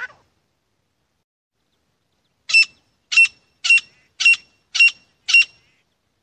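Grey francolin calling: after a pause of about two seconds, six short, sharp, high notes in an even series about two a second.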